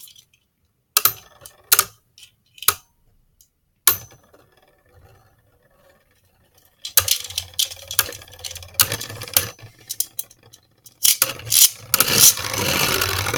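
Two Beyblade Burst spinning tops knocking together in a plastic stadium: a few separate sharp clacks, then from about seven seconds a fast run of rattling clicks as they grind against each other, louder near the end.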